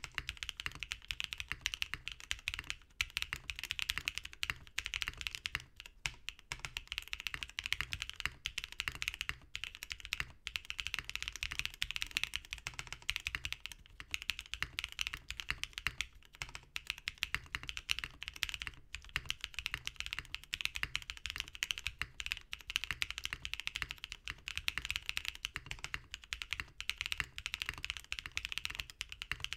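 Typing sound test of a FreeBird TKL mechanical keyboard with lubed and filmed Durock POM linear switches on a POM plate, an O-ring-mounted aluminium case and PBT keycaps. Fast continuous typing, a dense stream of keystrokes with a few brief pauses.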